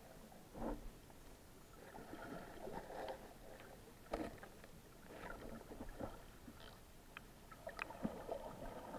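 Muffled underwater sound heard through a GoPro's waterproof housing: moving water swishes irregularly, with scattered short knocks and clicks.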